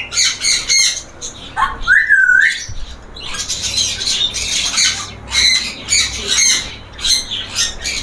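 Many caged parrots and parakeets squawking and chirping together in dense, overlapping calls, with one whistled call that rises, dips and rises again about two seconds in.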